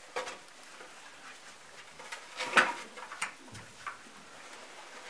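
Golden retriever puppies scrabbling and clambering on a wooden plank ramp in a box of wood shavings: scattered short knocks and scrapes, the loudest about halfway through.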